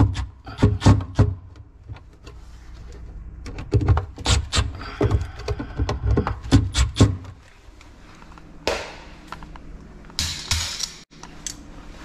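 Milwaukee cordless driver run in short bursts to drive a wall outlet's mounting screws, in a cluster about a second in and again from about four to seven seconds in. Handling and rustling noises follow near the end.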